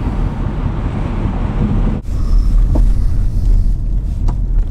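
Car cabin noise while driving on a motorway: steady road and engine rumble with tyre hiss. About two seconds in it cuts sharply to a duller, deep rumble with less hiss and a couple of faint clicks.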